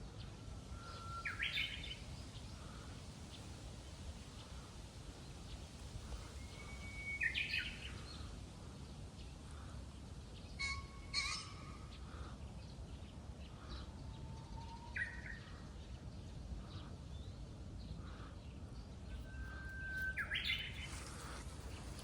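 Japanese bush warbler singing its 'hoo-hokekyo' spring song about five times, each a long held whistle followed by a quick flourish. Wind rumbles low on the microphone.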